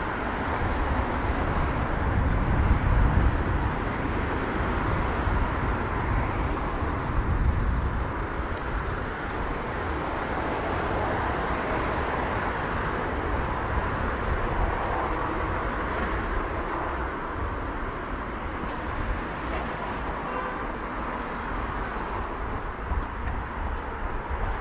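City street ambience: steady traffic noise with a low rumble.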